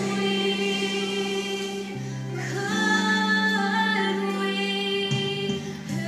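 A girl singing a solo with a children's choir over sustained musical accompaniment, including long held notes.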